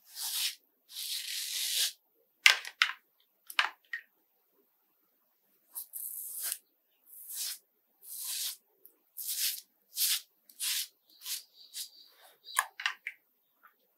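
Multi-blade cartridge razor scraping over a lathered scalp in short strokes, about ten of them, some a second long. A few sharp clicks fall between the strokes.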